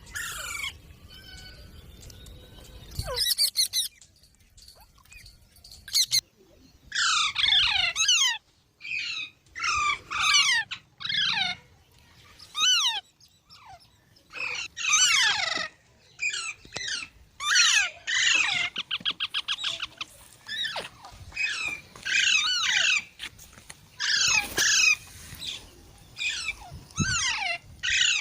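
Rose-ringed parakeet (Indian ringneck) giving repeated harsh screeching calls, each under a second and falling in pitch, in irregular series. There is a quick stuttering run of short notes about two-thirds of the way through.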